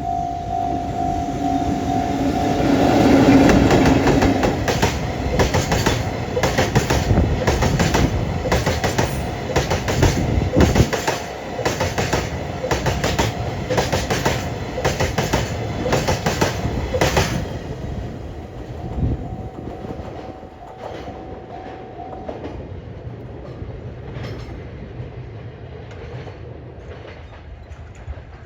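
EF65 electric locomotive hauling a train of Taki tank wagons past a level crossing. The locomotive goes by loudest about three seconds in. The wagons' wheels then clatter over the rail joints in an even clickety-clack for about twelve seconds, which fades as the train draws away. A steady ringing tone, the crossing's warning bell, is heard at the start and again briefly later.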